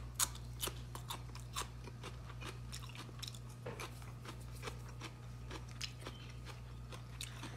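Close-up mouth sounds of a person chewing braised cobia with fatty skin: irregular wet clicks and smacks, a few each second, over a low steady hum.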